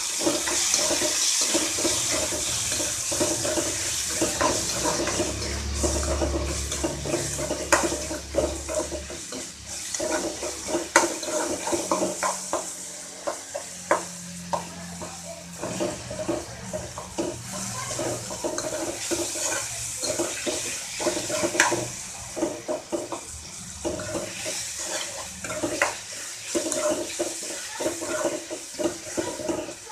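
Chopped onions and tomatoes sizzling in oil in a steel kadai, with a steady hiss and the steel spoon scraping and clicking against the pan as they are stirred. They are being fried down until soft, salted to soften faster. A steady low hum runs underneath.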